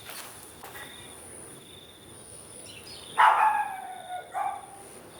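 An animal's call, twice: a loud drawn-out call about three seconds in and a short one about a second later, over a faint steady high whine.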